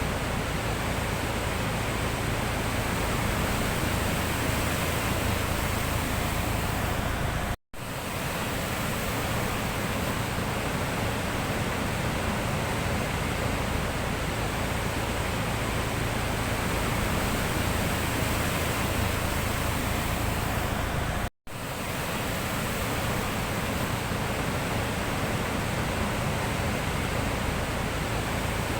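Sea waves heard as a steady, even rushing noise. It drops out for a split second twice, about eight seconds in and again after about twenty-one seconds.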